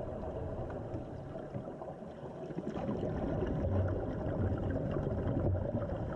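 Underwater ambience picked up by a dive camera: a steady water hiss with fine crackling and low rumbles that swell about four seconds in.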